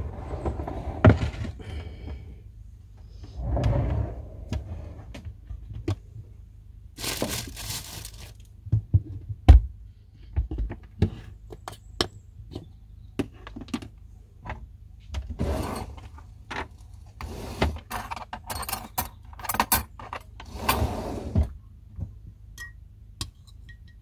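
Objects being handled: an irregular string of knocks, clinks and thunks with short bursts of rustling, the sharpest thump about ten seconds in.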